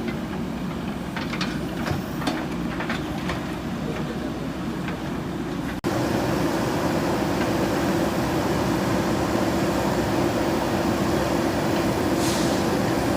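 JCB 3DX backhoe loader's diesel engine running steadily, with a few sharp knocks in the first few seconds. About six seconds in the sound cuts abruptly to a louder, steady engine drone, and a short hiss follows near the end.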